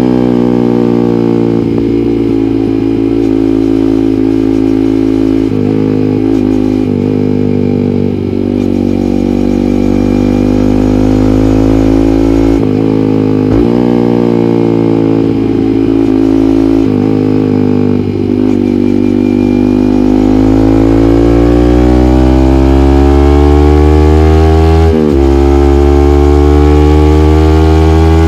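Yamaha MT15's 155 cc single-cylinder engine through an aftermarket SC Project muffler, ridden at a fairly steady speed with small throttle changes. About two-thirds through it accelerates with a long rising pitch, drops sharply at a gear change, and starts climbing again.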